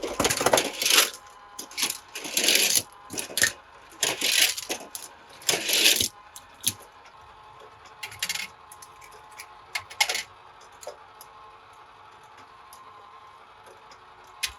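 Small toy cars clinking and clattering against each other as they are handled, in a series of short bursts that thin out to a few isolated clicks and then stop.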